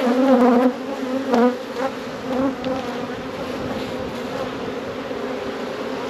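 Honeybees buzzing around an opened hive whose brood chamber is being worked. The hum is steady, louder and wavering in the first second and a half as bees fly close past.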